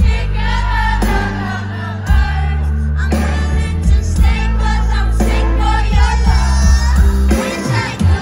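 Live song: a woman singing into a handheld microphone over a band with strong, sustained bass notes, amplified through the stage PA.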